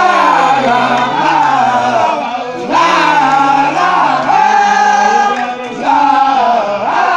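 Men chanting a Baye Fall religious song, a high voice holding long notes over lower men's voices. The singing goes in phrases of one to two seconds with brief breaks between them.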